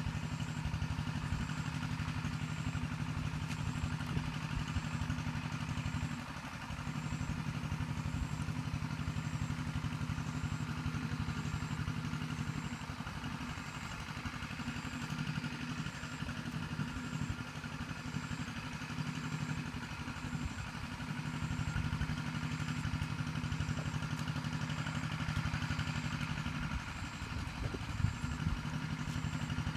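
A small engine running steadily in the background, a continuous mechanical drone that eases off for a while twice and comes back.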